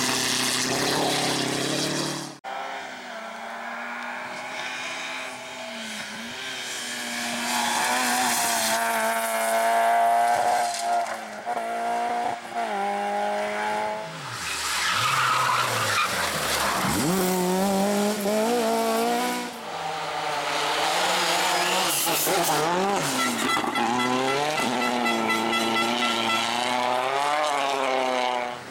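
Rally cars at full speed on special stages, one after another: engines revving hard, rising and falling through gear changes as each car goes by, with tyre noise. The sound changes abruptly a couple of times as one pass cuts to the next.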